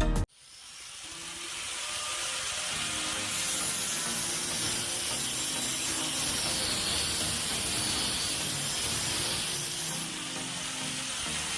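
Power saw cutting wood: a steady, noisy sawing sound with a faint high whine. It fades in during the first couple of seconds.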